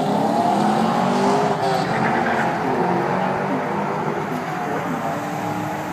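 2010 Chevrolet Camaro SS's 6.2-litre V8 revving hard during a burnout, its pitch rising and falling, over the rush and squeal of spinning rear tyres.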